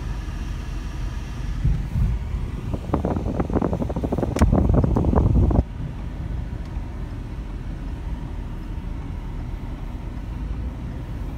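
Car driving, heard from inside the cabin: a steady low rumble of engine and road. In the middle it grows louder for about three seconds with a rapid clatter of knocks, then cuts off suddenly.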